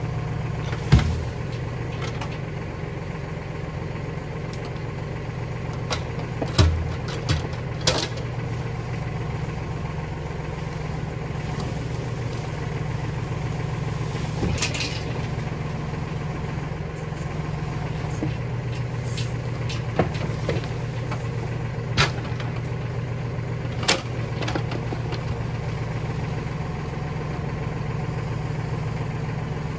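An engine running steadily at idle, with a few sharp knocks and clunks: one about a second in, several around seven to eight seconds in, and three more spaced about two seconds apart later on.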